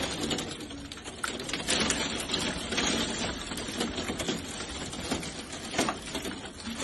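Heavy rain and hail pelting down in violent storm winds, a dense crackle of countless small impacts. A louder knock stands out near the end.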